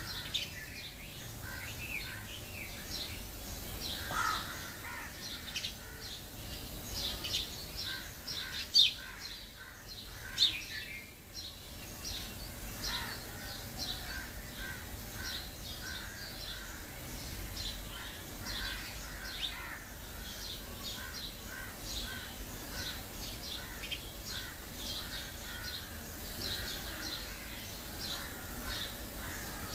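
Many birds chirping in quick short calls, with two sharper, louder sounds about nine and ten seconds in.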